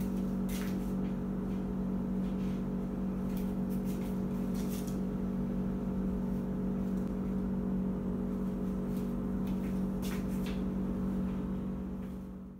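A steady low mechanical hum, as of a fan or appliance motor, with a few light knocks as baked loaves are set down on a wire cooling rack. The hum fades out near the end.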